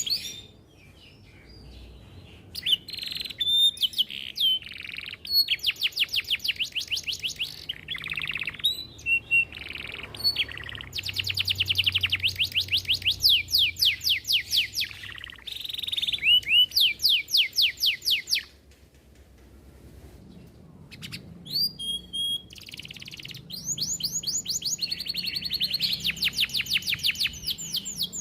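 Domestic canary singing long, fast trills and rolls of rapidly repeated chirping notes, broken by a couple of short pauses of about two seconds.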